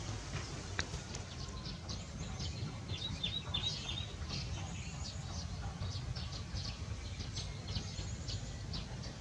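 Small birds chirping: many short, high chirps scattered throughout, busiest about three to four seconds in, over a steady low rumble.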